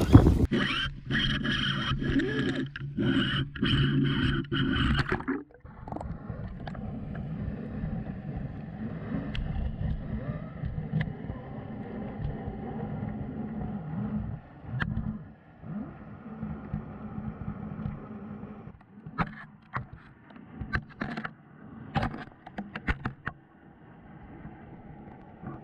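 A few seconds of loud rustling handling noise above the water. It cuts to the muffled underwater sound picked up by a GoPro Hero 7 Black sinking on a fishing rig: a dull steady rumble, with a run of sharp clicks and knocks near the end.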